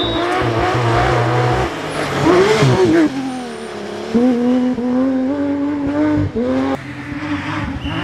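Porsche 911 GT3 RS rally car's flat-six engine at high revs, the pitch rising and falling with throttle and gear changes. About three seconds in the revs drop sharply, then climb steadily again before breaking off shortly before the end.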